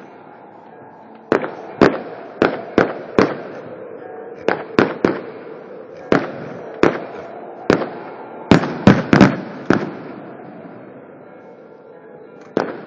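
Fireworks going off: a series of sharp bangs, irregularly spaced, starting about a second in, coming thickest a little after the middle, then tapering off, with one last bang near the end.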